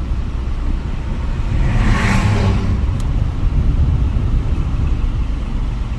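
Car driving down a rough road, heard from inside: a steady low rumble of engine and tyres, with a brief swell of hiss about two seconds in and a single sharp click about a second later.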